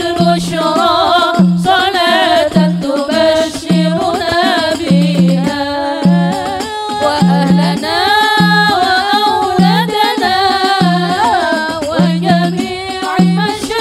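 A woman's voice singing sholawat, an Islamic devotional song, into a microphone, with drum accompaniment that gives a low beat roughly once a second.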